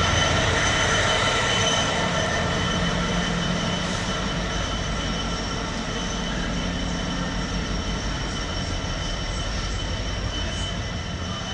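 Class 66 diesel-electric freight locomotive passing close, its engine running with steady high whines over a low rumble, loudest at first and slowly fading as it draws away. Container wagons follow, rolling past on the rails.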